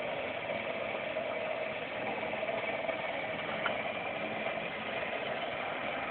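Motorized Pratt & Whitney R-2800 cutaway display turning over, a steady mechanical whir and rattle with a single light click partway through. Just before, the onlooker remarks that a part sounds like it might need a little attention.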